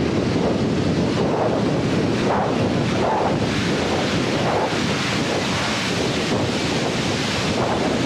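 Wind buffeting the microphone of a camera riding on a moving e-bike: a steady, unbroken rush of noise.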